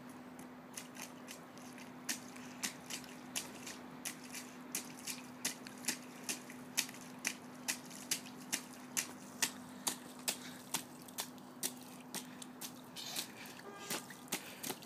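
Small child's rubber boots stamping and splashing in a shallow puddle on asphalt, quick sharp slaps about three a second that start about two seconds in.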